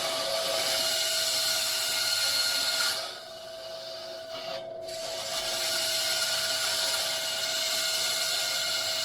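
Power saw running with a steady hum, cutting small slices into the metal suitcase weights of a die-cast toy tractor. The cutting noise eases off about three seconds in and picks up again at about five seconds.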